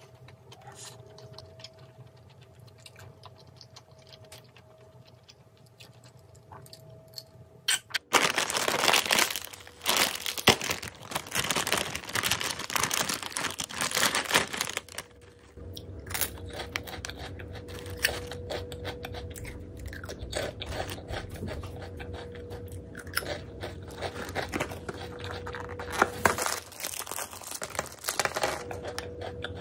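Foil-lined plastic snack bag crinkling and tearing as it is pulled open by hand, in loud crackly bursts starting about eight seconds in; more foil crinkling near the end as a foil biscuit pouch is opened. Before that, only faint small clicks.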